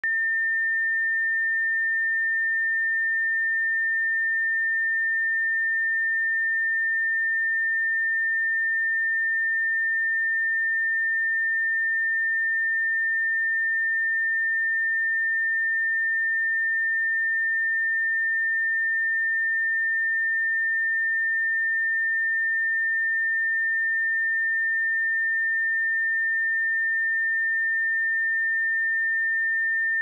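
A pure 1805 Hz sine-wave test tone, one steady high-pitched note held at constant level with no other sound.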